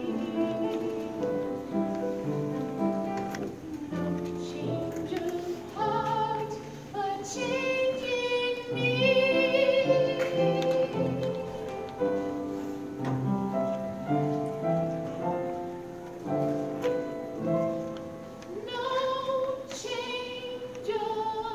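Female solo voice singing a musical-theatre ballad over accompaniment, holding a long high note about midway through and rising to another held note near the end.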